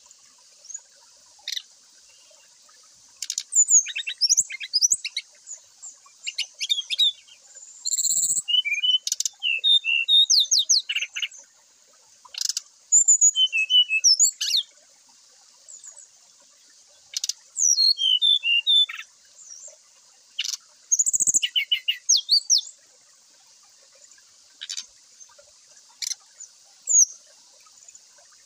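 Brown-chested jungle flycatcher (sikatan rimba dada coklat) singing loudly and openly ('ngeplong'): clusters of sharp gliding whistles and quick chirps, broken by pauses of a second or more, over a faint steady high hiss.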